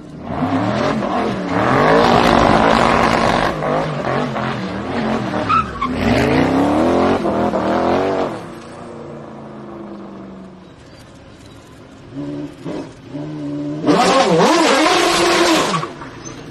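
High-performance sports car engines revving hard and rising and falling in pitch in three loud bursts, with quieter running between them, as the cars spin their rear tyres in donuts. The last burst comes near the end.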